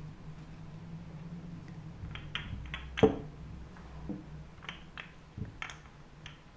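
Hands handling paper strips and toy number cubes on a cloth-covered table: a few soft rustles and scrapes, with one sharp knock about three seconds in.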